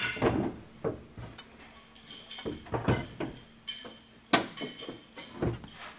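Irregular metallic clanks and knocks of hand tools and bolts as the driver's seat is unbolted from its rail inside the car, the loudest knock about four and a half seconds in.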